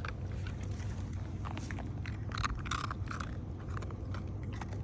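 A dog chewing and crunching a treat: irregular crunches and clicks, a burst of them about halfway through, over a steady low hum.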